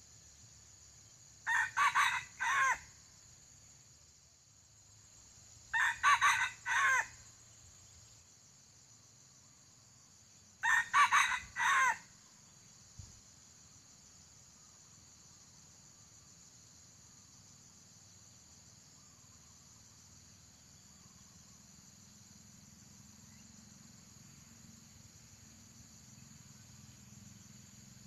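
Red junglefowl rooster crowing three times, about four to five seconds apart, each crow short and clipped, broken into several quick notes. A steady high drone of insects runs behind.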